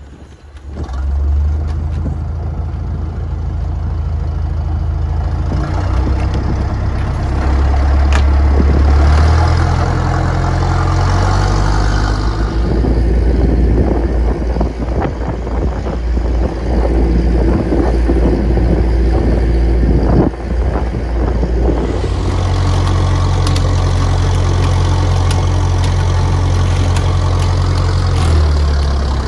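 Small trawl fishing boat's engine running steadily, a low drone under the wash of water and wind. Its pitch shifts a few times.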